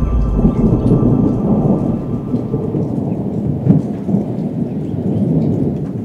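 Steady low rumble with rain-like noise and scattered faint ticks, like a thunder-and-rain sound effect, with one louder crack a little past halfway.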